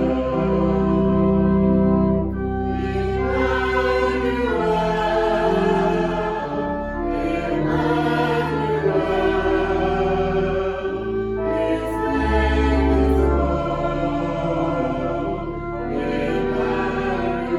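A choir singing slow music in long held chords over a low, sustained accompaniment.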